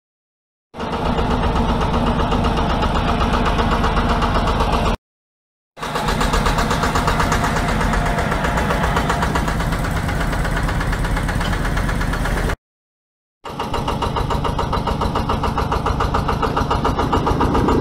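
Small river ferry's single-cylinder diesel engine running at a steady speed with a rapid, even beat. The sound is broken by two short silent gaps.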